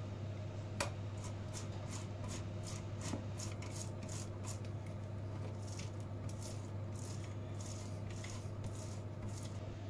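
A block of kaşar cheese being grated on a stainless steel box grater into a glass bowl: an even run of rasping strokes, about two or three a second. There is one sharper click about a second in.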